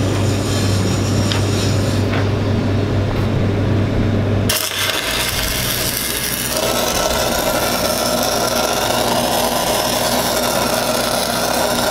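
A steady low hum, then about four and a half seconds in an arc strikes and the crackling hiss of arc welding sets in and carries on: a tack weld being laid to fix a pipe flange to a threadolet.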